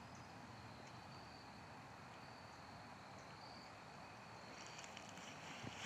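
Near silence: faint background hiss with a few short, faint high-pitched chirps, like distant insects, and a few faint clicks near the end.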